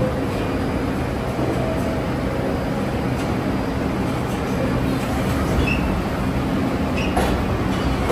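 New York City Subway train running through the station on the IRT 7th Avenue line, a steady rumble.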